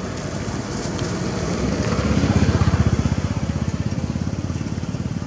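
A motor vehicle's engine passing by, growing louder to a peak between two and three seconds in, then fading.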